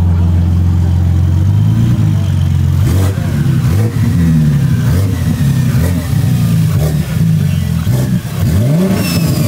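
Single-turbo BMW S58 straight-six idling steadily, then free-revved repeatedly from about a second and a half in, the revs climbing and dropping several times.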